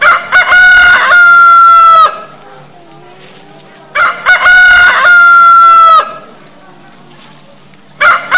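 Rooster crowing loudly three times, about four seconds apart. Each crow is the same: a few short opening notes, then a long held note that drops off at the end.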